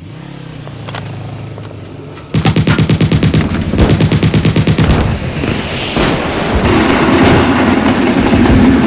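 Added sound effects of an explosion: after a low hum, two quick bursts of gunfire-like bangs at about ten a second begin a little over two seconds in, then give way to a loud continuous blast with more crackling bangs and a low rumble.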